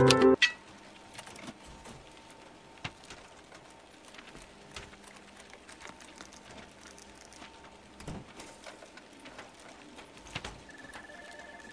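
Background music cuts off suddenly just after the start, leaving faint scattered clicks and light taps, with a faint high steady tone coming in near the end.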